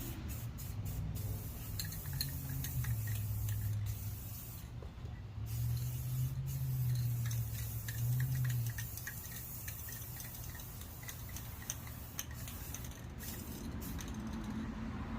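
Aerosol spray paint can hissing in bursts with short pauses as light coats go onto a metal tool box, with wind buffeting the microphone in a low, uneven rumble.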